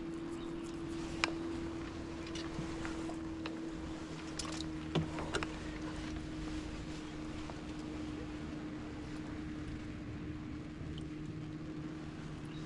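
Steady motor hum with a few sharp clicks and knocks, one about a second in and two around five seconds in.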